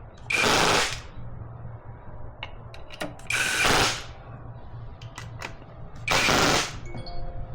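Power drill on its lowest setting running intake manifold bolts down snug, three short spins about three seconds apart, with small clicks of the socket and bolts between them.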